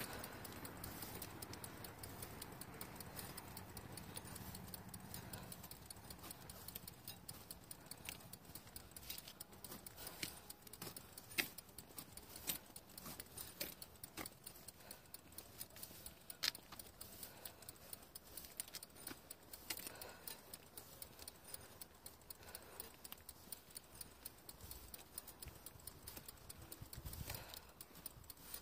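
Bicycle ride with light, irregular clicking and rattling, faint throughout, with a low hum that fades out in the first few seconds.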